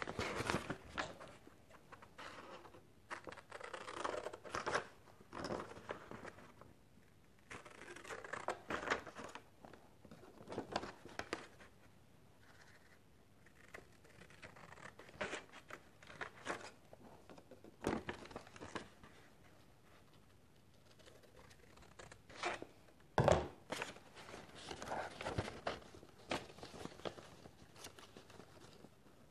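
Paperback book pages rustling and crinkling in short, irregular bursts as they are handled and folded, with snips of scissors cutting into the page edges; one sharper, louder crackle about three quarters of the way through.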